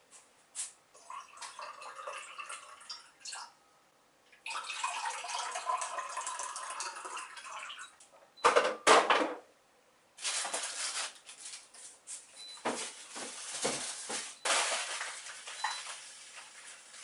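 Food containers and plastic bags being handled at an open refrigerator: irregular rustling, clinking and knocking, with a couple of louder knocks about halfway through.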